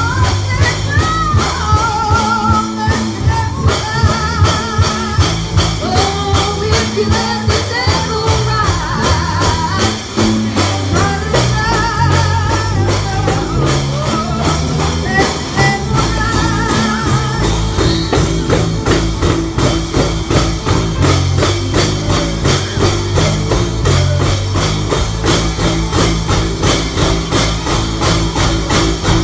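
A woman singing with a wide vibrato over a band with guitar and drum kit, on a steady beat. The singing stops about 17 seconds in and the band plays on.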